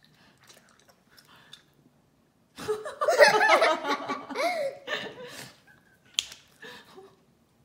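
A young girl laughing out loud, starting about two and a half seconds in and lasting about three seconds.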